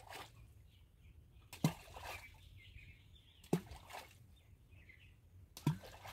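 Hand-thrown balls of clay mixed with gram-flour sattu groundbait landing in deep water, each hitting with a short plop-and-splash, three times about two seconds apart.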